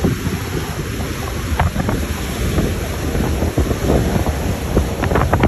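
Wind buffeting the microphone in uneven gusts, over the rush of choppy sea and the white water thrown up by a fast pilot boat running alongside.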